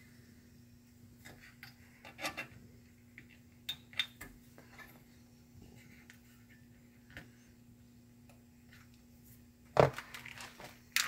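Light scattered clicks and taps of a jumper wire and small tools being handled against a circuit board, with a louder cluster of knocks near the end. A faint steady hum runs underneath.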